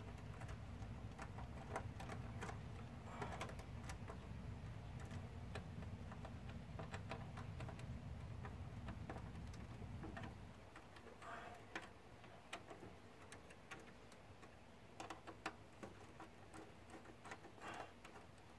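Light clicks and ticks of hand tools and wire ends being worked while wiring a replacement air-conditioner contactor, with a low hum underneath that stops about ten seconds in.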